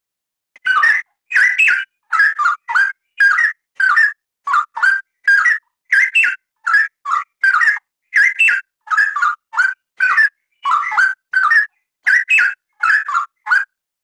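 Straw-headed bulbul (cucak rawa) singing a continuous run of loud, short whistled phrases, about two a second, that jump up and down in pitch. The song starts about half a second in and stops just before the end.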